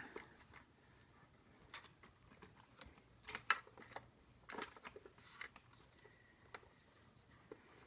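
Faint, scattered clicks and knocks of a plastic toy backhoe loader being handled, its arm parts being locked into place.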